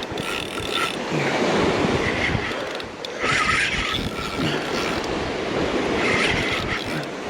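Wind buffeting the microphone over waves and moving water, with a higher-pitched noise that comes and goes several times.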